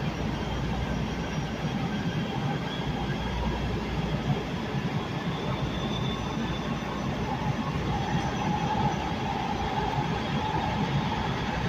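Metro K Line light rail train running, heard from inside the car: a steady low rumble of wheels on track. A higher whine comes in about eight seconds in.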